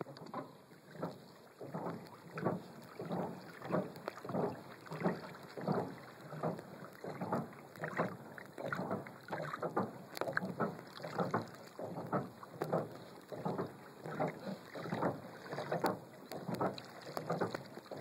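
Water swishing against a Hobie Outback kayak's hull in a steady rhythm, about three swishes every two seconds, as a leaf-spring flap pedal drive is pedalled.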